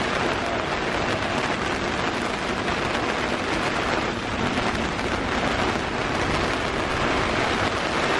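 Heavy rain falling on a sailing yacht's deck and cockpit: a steady, even hiss.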